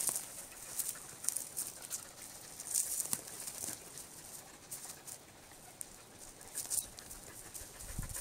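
Irregular light crunching and rustling of dog paws and boots shifting on dry, needle-covered forest ground, as Norwegian Elkhounds scramble and jump around a standing person.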